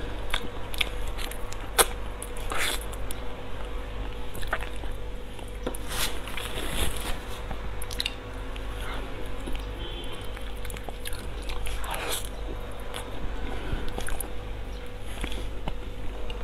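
A person eating soft, creamy durian flesh: wet chewing and lip smacks, heard as irregular short clicks over a steady low hum.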